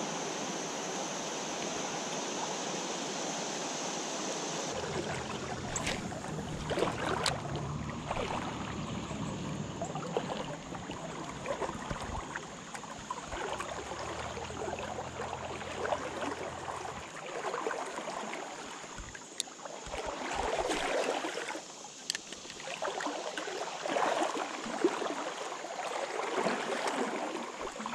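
River water flowing and rippling, with uneven swishing swells and a few sharp clicks.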